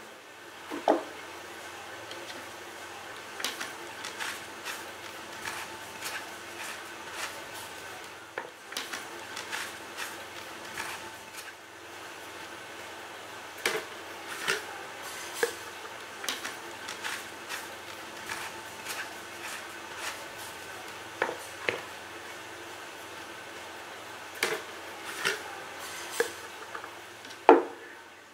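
Irregular clicks and knocks of clear plastic tubes and tennis balls being handled as the balls are packed into the tubes and the lids pressed on, over a steady low hum, with one louder knock near the end.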